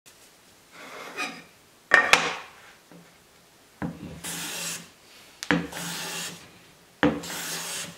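Hand plane strokes on wood: three separate passes of about a second each, every one starting with a sharp catch and running on as a hissy shaving scrape, after a pair of sharp wooden knocks about two seconds in.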